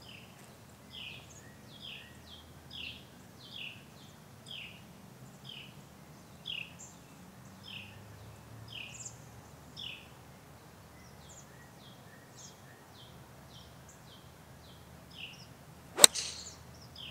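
A bird repeating a short descending chirp about once a second. About sixteen seconds in, a 9-iron strikes a golf ball on a full swing: one sharp, loud click.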